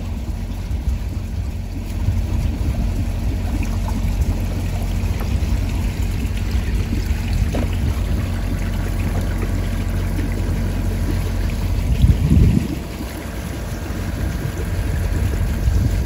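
A little water trickling from the open ends of pipes onto a galvanised sheet-metal trough, over a steady low rumble. The rumble swells briefly about twelve seconds in.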